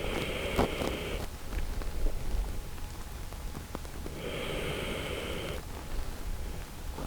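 Shiba Inu dog snoring in its sleep: two long, noisy snoring breaths, about four seconds apart.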